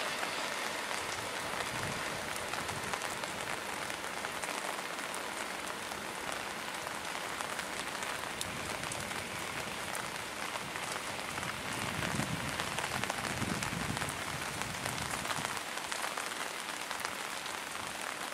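Steady, even hiss of rain falling, with fine patter throughout. A low rumble from the passing train's coaches rises between about twelve and fifteen seconds in.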